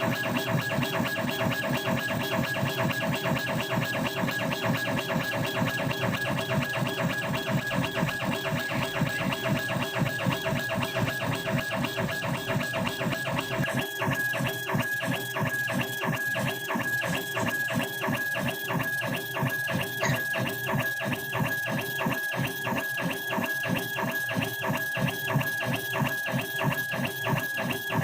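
Background music: a guitar-led track with a fast, steady beat, whose arrangement thins out about halfway through.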